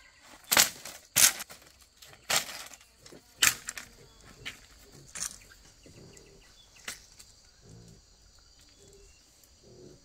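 A series of sharp knocks or snaps at irregular gaps of about a second, thinning out after about seven seconds.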